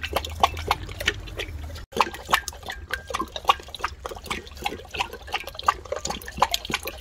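Labrador retriever lapping water from a glass dish: quick, irregular wet splashing laps of the tongue, several a second. There is a brief gap about two seconds in.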